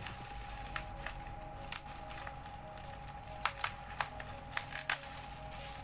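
Plastic bubble wrap being handled and pulled open, giving scattered crinkles and sharp clicks, over soft background music.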